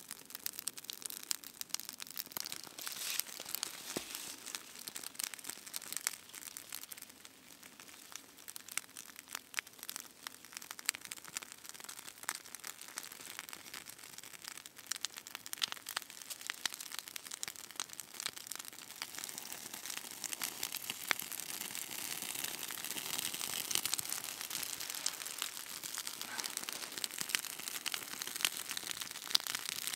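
Dry tinder and thin wood shavings crinkling and crackling with many small sharp snaps as a smouldering tinder bundle is handled and set into kindling. The crackle grows denser and a little louder in the second half as the kindling catches.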